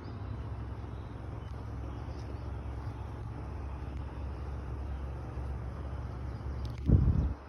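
Steady low rumble of a car running or driving slowly. A brief, loud, low thump comes near the end.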